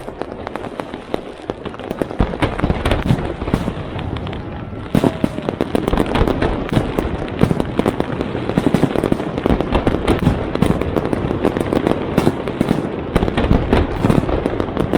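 Fireworks going off: a dense, continuous crackle of sharp bangs and pops that grows heavier and louder about five seconds in.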